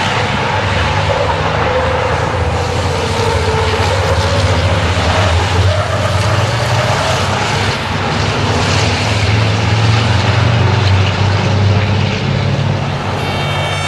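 Racing trucks' heavy turbodiesel engines running hard through a corner, the engine note sliding down and then back up.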